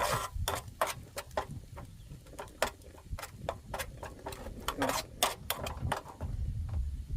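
A spoon tapping and scraping against a cooking pot in irregular clicks, about two or three a second, while a gravy is stirred to thicken it with cornflour. A low steady rumble sits underneath.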